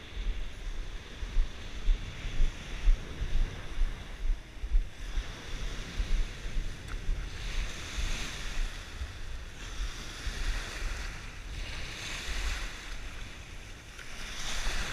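Surf breaking and washing up the sand, with a swell of hissing foam every two or three seconds that grows stronger in the second half. Wind buffets the microphone with gusty low rumbles throughout.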